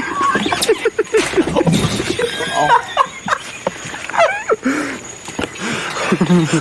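Laughter with wheezing: quick repeated bursts of breathy laughs and high squeaky gasps that rise and fall in pitch.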